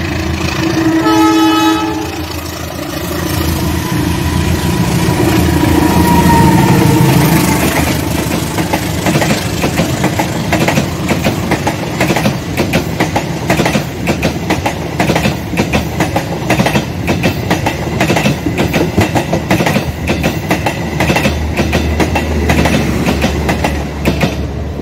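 An Indonesian diesel-electric locomotive gives one short horn blast about a second in, then runs past with its engine sound rising and falling. A long rake of new stainless-steel passenger coaches follows, its wheels clacking rapidly and steadily over the rail joints.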